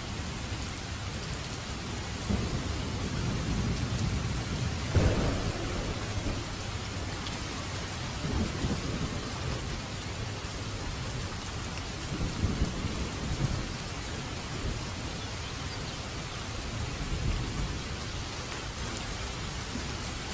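Steady rain in a thunderstorm, with low rolls of thunder swelling up several times; the loudest comes with a sudden crack about five seconds in.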